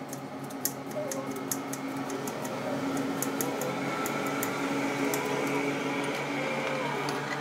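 Kitchen knife chopping cucumber on a plastic cutting board: irregular light taps, about two or three a second, over a steady background hum.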